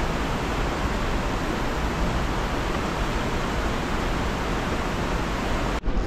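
Mountain river rapids rushing steadily over boulders. The sound breaks off for an instant near the end.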